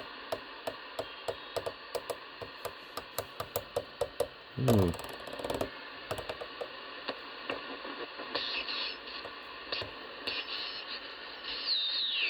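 Superstar 360FM CB radio being tuned around the band: the channel selector clicks through channels about four times a second over steady receiver hiss. A whistle then sweeps down in pitch as a signal is passed over, and near the end a sideband signal slides down in pitch as it is tuned in.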